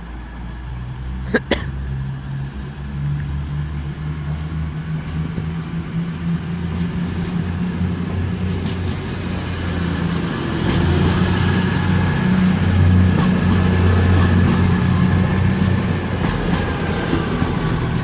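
Class 222 Meridian diesel multiple unit pulling away from the platform, its underfloor diesel engines working under power and growing louder. There is a sharp knock about a second and a half in, and scattered clicks from the wheels and rails later on.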